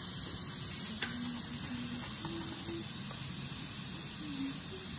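Steady hissing sizzle from a wok of chicken pieces cooking in soy sauce with dried chillies over a gas burner turned up high. A small click about a second in.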